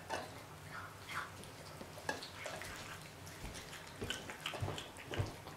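Domestic cat eating half-raw chicken from a stainless-steel bowl: irregular wet chewing, licking and smacking clicks, with a couple of soft low thumps near the end.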